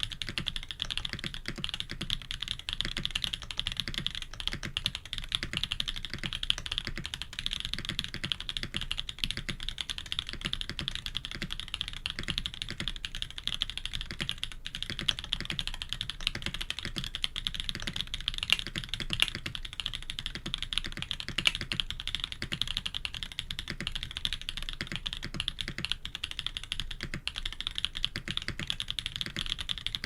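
Continuous fast typing on a K80 custom mechanical keyboard with Jade Black switches, PBT keycaps and an FR4 plate: a dense, steady stream of key clacks.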